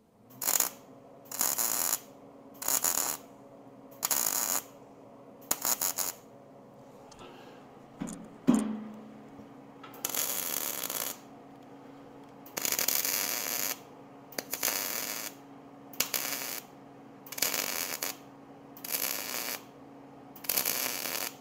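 MIG welder arc crackling in about a dozen short bursts, each half a second to a second long: thin-wall square tube being tacked and stitch-welded onto heavier-wall tubing. A low steady hum runs beneath it between bursts, and one sharp ringing knock comes about eight seconds in.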